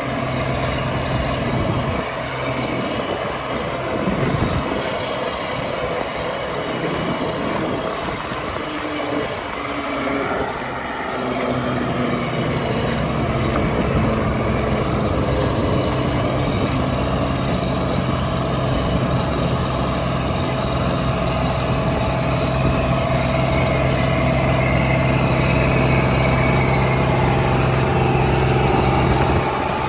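Heavy machine engine running, uneven at first, then settling about eleven seconds in into a steady low drone that holds until near the end.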